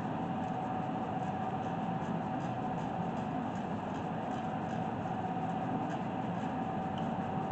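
Steady mechanical hum and hiss with a constant high whine, unchanging throughout.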